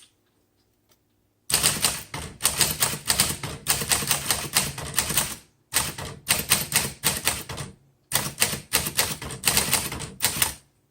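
1947 Smith Corona Sterling manual typewriter being typed on: rapid keystrokes in three quick runs with short pauses between them, starting about a second and a half in.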